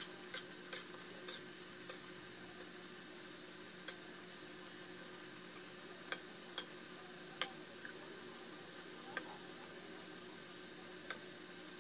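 A spoon clinking and scraping against a metal wok while stirring chicken adobo, over a steady low sizzle of the simmering sauce. There are several quick clinks in the first two seconds, then single clinks every second or two.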